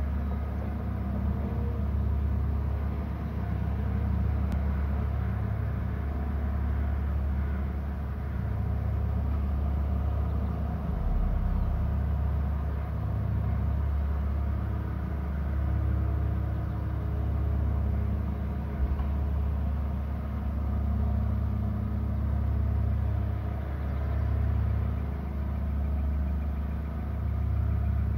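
Steady low rumble that swells and eases every few seconds.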